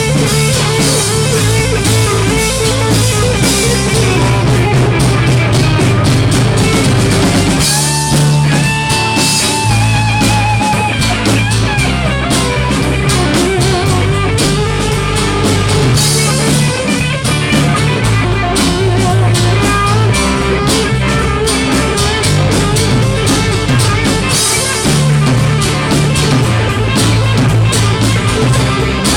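Live rock band playing an instrumental passage with guitar, a bass line and a drum kit.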